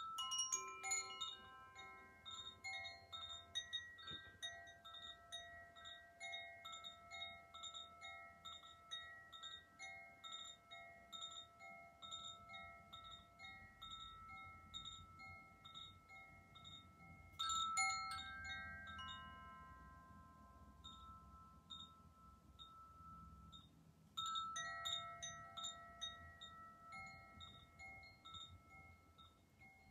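Tuned metal chimes ringing: a cluster of sustained bell-like tones with a quick repeated tinkle running through them. They are set ringing anew twice more, about 17 and 24 seconds in.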